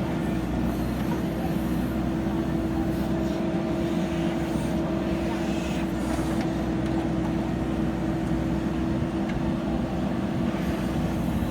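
JCB backhoe loader's diesel engine running steadily with an even drone.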